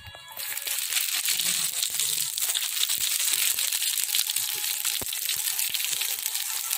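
Hot oil in an aluminium kadai sizzling and crackling as cumin is dropped in. It starts abruptly just after the spice goes in and runs on steadily, with a couple of sharper pops.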